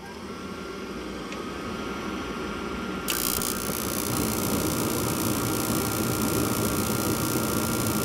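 Gas furnace package unit starting a heating cycle: the inducer fan motor runs up to speed with a steady hum and a thin whine, and about three seconds in a sudden rush of noise as the gas burners light, then the burners keep burning steadily.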